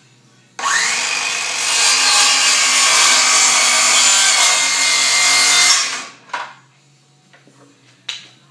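A power tool spins up with a rising whine and cuts into pallet wood for about five seconds, then stops; two short knocks follow.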